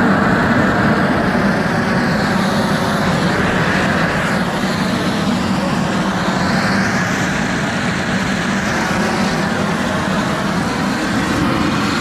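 Home-built pressure-washer steam cleaner running, a steady loud rushing noise over a low hum with no break.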